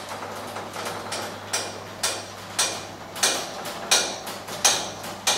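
Remote-controlled electric up-and-over garage door opening: the opener mechanism runs with a sharp clack about every two-thirds of a second, the clacks growing louder as the door rises.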